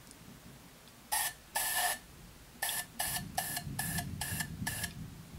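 Aerosol spray paint can sprayed in short hissing blasts into a handlebar grip, used to make the grip slide on: two bursts about a second in, then six quick bursts about two a second.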